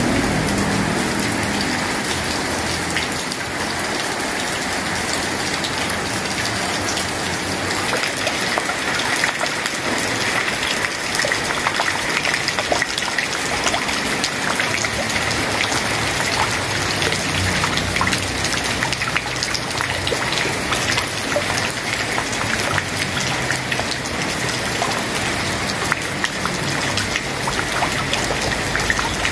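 Steady rain falling on a tiled terrace, plant pots and the surface of a small pond, with many close raindrop taps.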